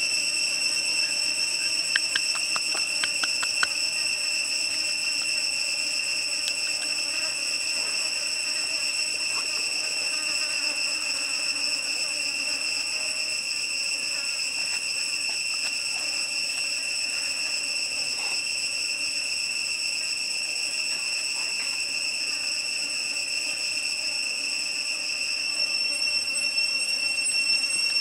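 Steady, high-pitched insect drone that holds one even pitch throughout, with a few faint clicks about two to four seconds in.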